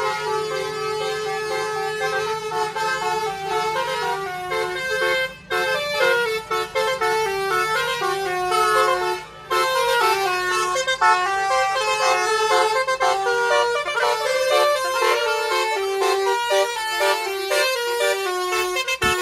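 Musical multi-tone car horns playing a tune, the notes changing in quick steps, with two short breaks about five and nine seconds in.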